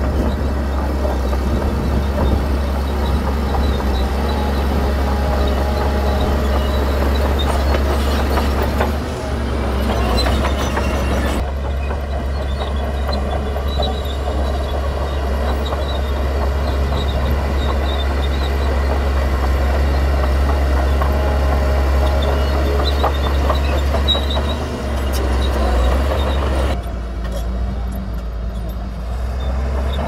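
Heavy diesel earthmoving machinery running: a steady, deep engine drone with a rougher noisy layer above it. The sound changes abruptly about nine, eleven and a half, and twenty-seven seconds in.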